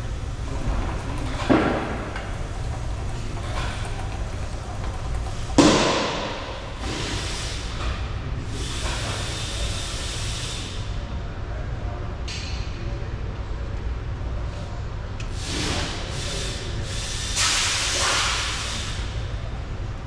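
A steady low hum with several bursts of hissing noise. The loudest starts sharply with a thump about six seconds in, and another long hiss comes near the end.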